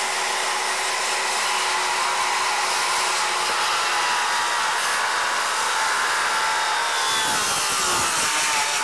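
Cordless Makita circular saw with a fine-finish blade, running steadily as it cuts down a steel pre-hung door. Its whine sags in pitch over the last couple of seconds.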